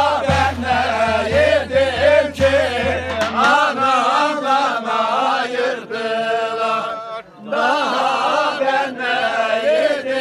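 A group of men singing a Bayburt bar in chorus as an ağız barı, with voices and no instruments carrying the dance tune. A low, evenly spaced beat sounds under the singing and stops about three and a half seconds in.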